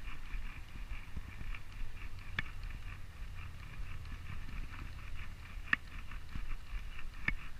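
Spinning reel being cranked to bring in a hooked small striped bass: a fast, even ticking, strongest in the first few seconds, over a low rumble, with a few sharp clicks.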